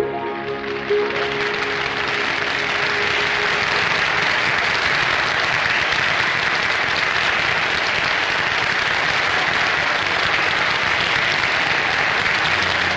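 Audience applause, building about a second in and then holding steady, with the song's accompaniment ending on a held note that fades out under it within the first few seconds.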